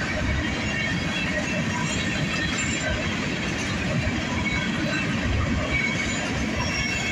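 Freight train of covered hopper cars rolling steadily past, its wheels running on the rails, with brief high wheel squeals now and then.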